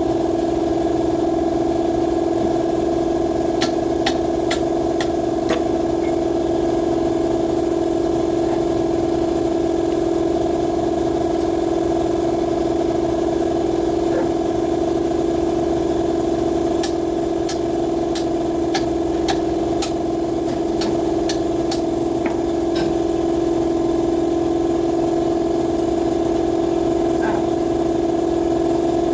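An electric motor hums steadily at an even pitch, with scattered sharp metallic clicks from hand-tool work, in a cluster about four to five seconds in and a denser run between about seventeen and twenty-two seconds in.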